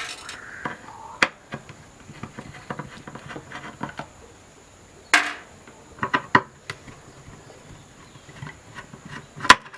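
Screwdriver work on small screws in an LED lamp's metal housing: scattered light clicks and scrapes, with a few sharper metallic knocks, the loudest near the end.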